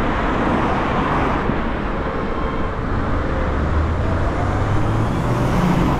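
Road traffic heard from a roadside cycle lane: a steady wash of passing cars, with a deeper engine hum growing louder in the second half.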